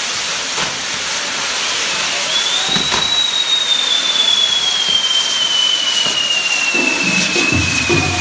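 Castillo fireworks tower burning: its fire wheels spray sparks with a loud, steady hiss. Over the hiss, a whistling tone rises for the first few seconds, then slowly falls in pitch, and a few sharp cracks go off.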